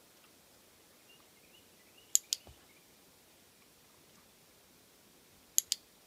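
A handheld dog-training clicker is clicked twice, about three and a half seconds apart. Each click is a sharp double click-clack. The clicks mark the sheltie's head dip toward the trainer's hand as the moment a treat is earned.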